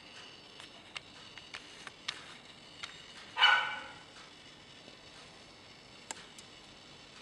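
A dog barks once, loud and short, about three and a half seconds in, over a low background with faint scattered clicks.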